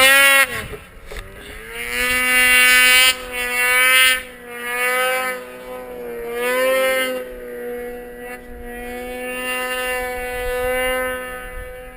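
Snowmobile engine running under changing throttle, its pitch rising and falling in several surges before settling to a steadier note in the last few seconds.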